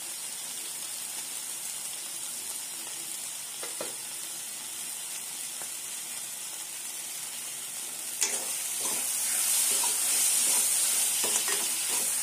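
Tomatoes and onion-masala sizzling steadily in a metal kadai. About eight seconds in, a steel ladle starts stirring and scraping the pan with scattered clicks, and the sizzle gets louder.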